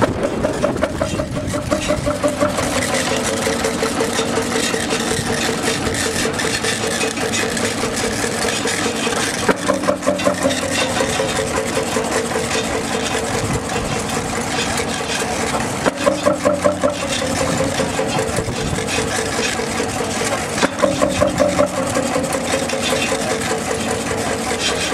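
Old Jelbart light-oil (kerosene) tractor engine running steadily under load while belt-driving a chaff cutter, with a fast, regular exhaust beat. A few times, stretches of louder, sharper beats come through.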